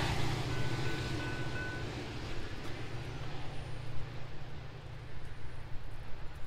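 Train rumbling as it moves away, its sound fading over the first few seconds and leaving a steady low drone.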